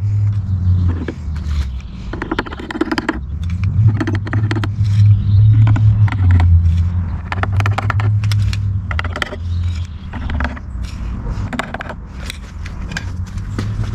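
Many quick small clicks and scrapes of a metal wire and paint can being handled, over a low rumble that comes and goes every second or two.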